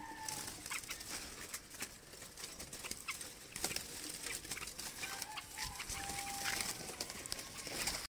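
Caged birds calling faintly, one short held note near the start and another about six seconds in, among many scattered light clicks and taps.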